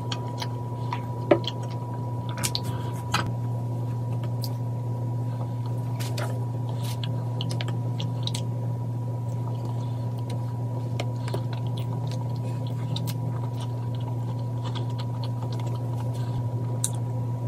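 Close-up eating sounds: soft chewing of moist chocolate cake and scattered small clicks of a metal fork, with one sharp knock about a second in, over a steady low hum.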